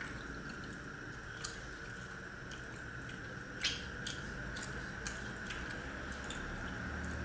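Two people eating paratha and curry by hand: quiet chewing and handling of the flatbread, with a few sharp light clicks, the loudest about three and a half seconds in, as fingers tap against the steel curry bowls. A steady faint hum runs underneath.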